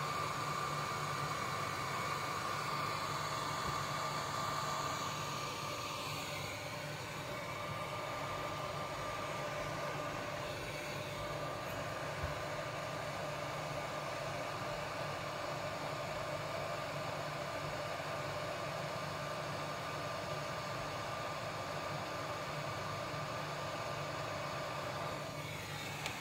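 Hot air rework gun blowing steadily, its fan giving a steady whine over the rush of air, as it heats a circuit board to desolder a faulty chip.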